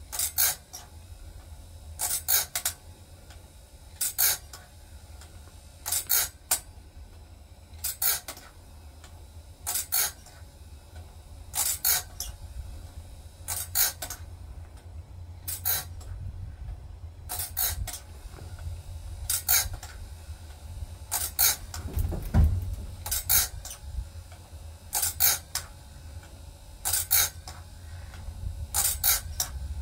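Wood-Mizer BMS250 bandsaw blade sharpener running with a steady low motor hum, its grinding wheel giving a short, often doubled, high grinding rasp about every two seconds as it grinds the blade tooth by tooth. A single low thump comes about two-thirds of the way through.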